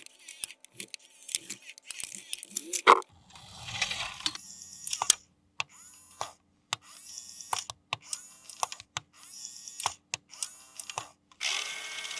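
Plastic toy parts and packaging being handled: a string of sharp clicks and taps, a louder knock about three seconds in, then repeated short rustling, hissing bursts.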